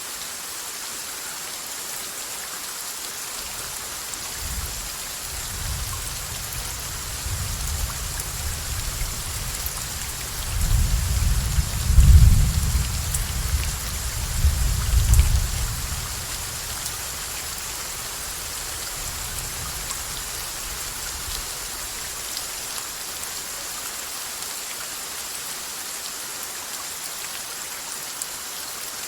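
Steady rain falling, with a long roll of thunder. The rumble builds from about four seconds in, swells twice near the middle and dies away a little past halfway.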